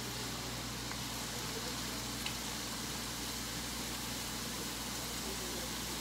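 Steady hiss of cooking on the stove: a large pot of soup simmering beside onion frying in a pan, with a single light tap about two seconds in.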